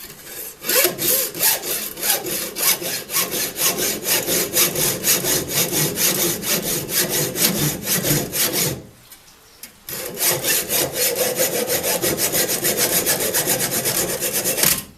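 Hacksaw cutting through a metal rivet on a knife handle, in quick, steady back-and-forth strokes. There is a break of about a second a little past halfway, then the sawing resumes.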